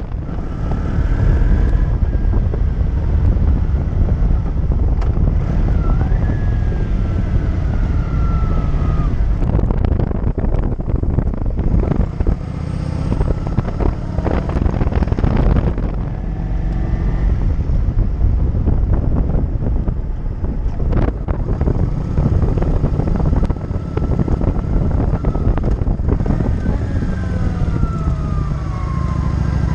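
Cruiser motorcycle engine running on the road, mixed with heavy wind noise on the microphone. The engine note drops a few times as the revs fall.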